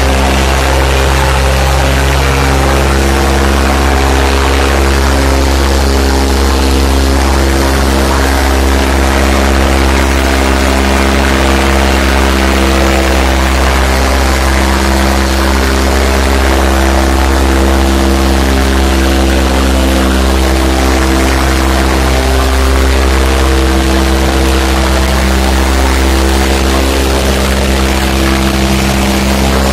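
Farmtrac 60 tractor's diesel engine running steadily and hard under heavy load as it pulls an implement through the soil, blowing thick black smoke.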